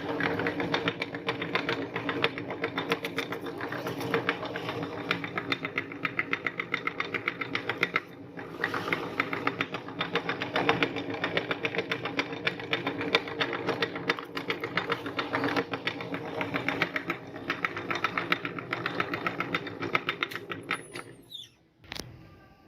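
Meat grinder motor running with a steady hum and a dense, rapid clicking as it grinds soft cookies, dipping briefly about eight seconds in. It stops near the end, followed by a short falling whoosh.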